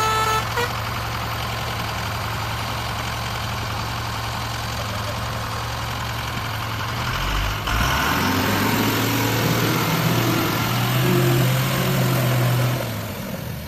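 Truck engine idling, a steady low hum. About seven and a half seconds in it gets louder, with several low tones shifting in pitch, and eases off near the end.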